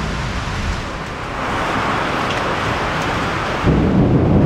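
Storm wind blowing across the microphone. A gust swells about a second and a half in, and a heavier low buffeting rumble comes in near the end.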